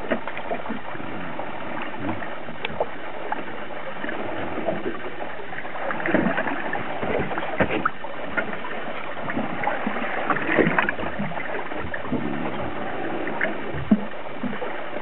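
A boat under way: a steady rushing noise with irregular splashes and knocks, busiest about midway through.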